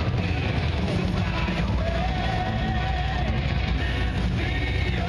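Rock music with a voice holding long sung notes over a heavy, steady beat.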